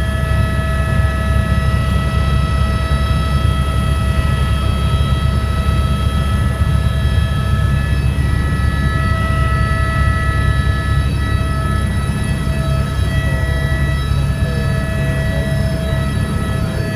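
Helicopter in flight: a loud, steady low rumble of engine and rotor with several steady high whining tones over it.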